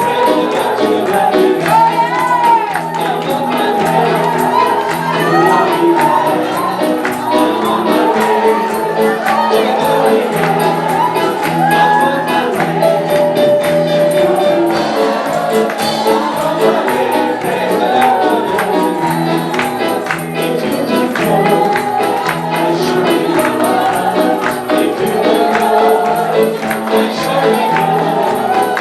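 Gospel worship music: a group of voices singing over a steady bass line, with a tambourine shaken on the beat.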